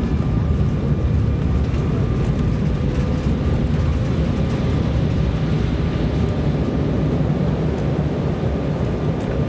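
Embraer ERJ-170 jet in reverse thrust during the landing rollout, heard from inside the cabin: a loud, steady roar of the turbofans mixed with the rumble of the wheels on the runway, with faint steady whines running through it.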